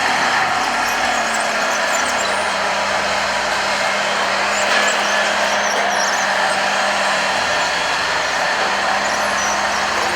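Radio-controlled construction models running: a steady mechanical whir with a constant low hum underneath.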